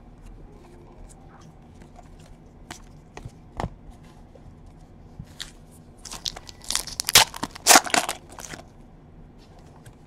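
A few light clicks of trading cards being handled, then about six seconds in a couple of seconds of loud crinkling and crackling as a foil card pack is torn open.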